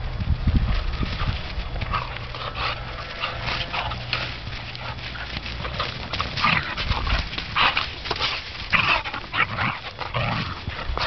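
Two whippets play-fighting: short, irregular bursts of dog noises throughout, with thumps and scuffling of paws on grass, heaviest in the first second.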